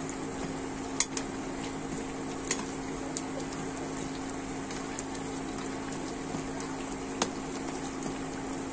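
Urad dal vadas sizzling steadily as they deep-fry in hot oil in a kadai, with three sharp clicks of a metal slotted spoon against the pan as they are turned over.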